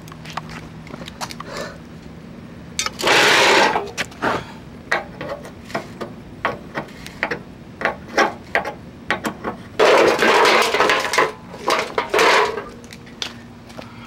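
Tools working on the compressor's mounting bolts of a window air conditioner: a run of metal clicks and knocks, with two louder, rasping stretches, one about three seconds in and a longer one about ten seconds in.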